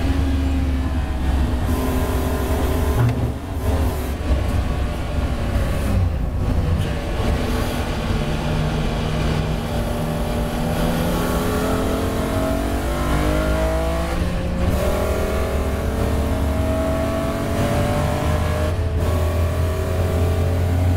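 BMW M3 race car engine heard from inside the cabin, coming down in speed for a corner and then accelerating hard, its note climbing through the gears. There are brief breaks in the sound at each gear change.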